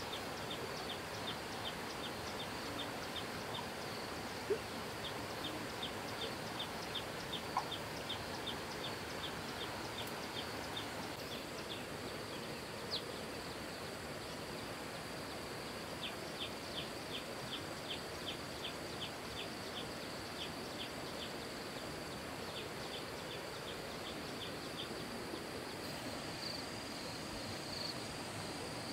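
Insects chirping outdoors: a short high chirp repeated evenly about three times a second, pausing around the middle, over a steady background hiss. A higher insect buzz pulses near the end.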